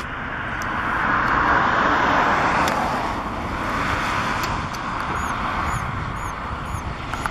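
Road traffic: a steady rush of vehicle noise that swells about a second in and then eases off. Four faint, short, high chirps come near the end.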